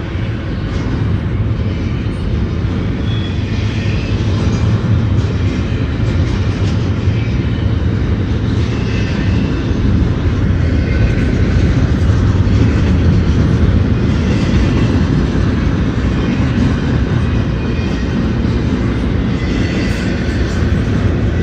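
Loaded double-stack intermodal well cars of a freight train rolling past close by: a loud, steady rumble of steel wheels on the rails.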